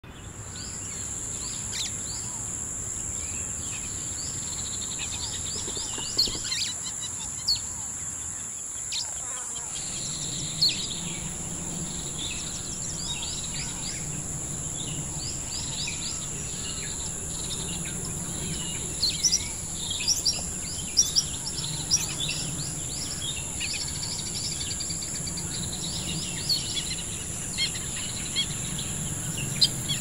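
Several birds chirping and calling, with short rapid chirps and a few louder sharp calls scattered through, over a steady high-pitched insect drone.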